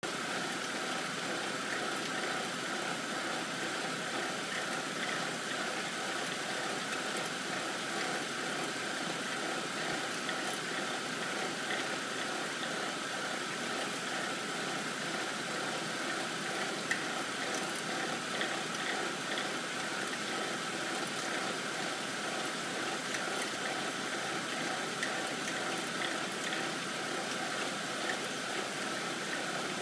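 2007 BMW 328's N52 3.0-litre straight-six idling steadily, with a rattle and vibration. The owner hears this rattle mainly when the engine is cold and only at idle, and it eases once the engine is fully warm.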